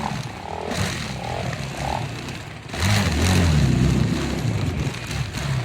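A motor vehicle engine running and revving, getting much louder about three seconds in.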